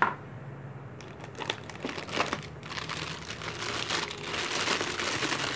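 Clear plastic bag crinkling as the metal access-point mounting plate wrapped in it is handled and lifted out of its box. The crinkling starts about a second in and grows louder toward the end.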